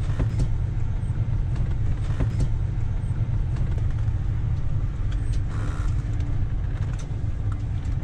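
Motorhome engine and road noise heard from inside the cab while driving slowly through a tight turn: a steady low rumble with a few light clicks.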